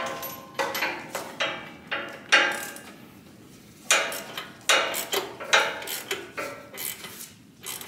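Socket ratchet tightening a spark plug back into a mower engine's cylinder: a string of irregular metal clicks and clanks spread over several seconds.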